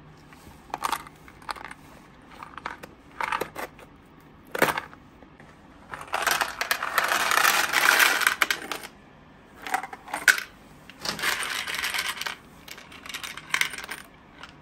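A few separate clicks and rustles as a packet of self-tapping screws is handled and cut open with a utility knife. Then about 200 small metal screws are poured into a container: a long rattling pour in the middle and a shorter one about eleven seconds in.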